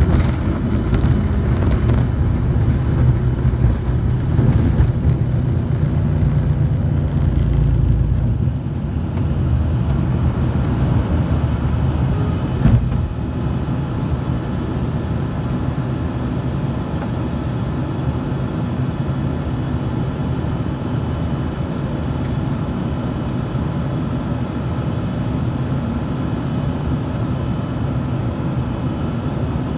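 Jet airliner cabin noise during takeoff: the engines at takeoff power with a heavy rumble from the wheels on the runway, which drops away about eight seconds in as the plane lifts off. A single short thump a few seconds later, then the steady drone of the engines in the climb.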